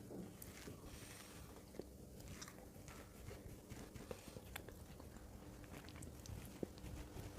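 Faint biting and chewing of mooncake close to the microphone, with small scattered mouth clicks.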